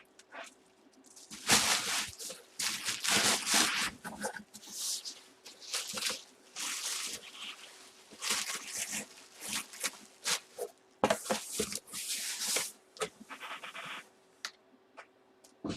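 Packaging being handled in irregular bursts of crinkling and rustling, as of a plastic bag and cardboard box while a football helmet is packed back into its box.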